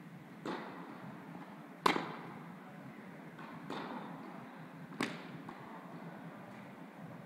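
Tennis ball impacts during a rally in an indoor tennis hall: four sharp pops of the ball off the racket and court, the loudest about two seconds in, each followed by a short echo from the hall.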